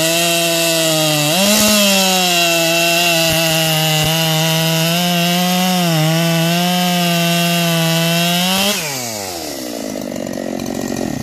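Modified Dolmar 7910 two-stroke chainsaw, ignition timing advanced 5°, at full throttle cutting through a large log, its pitch rising a little about a second and a half in and dipping slightly a few times under load. Near the end the throttle is released and the engine drops quickly to idle.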